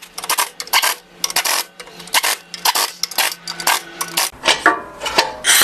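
Irregular sharp metallic clinks and taps of tools and steel parts being handled while a new clutch pressure plate and disc are fitted, several strikes a second with short ringing.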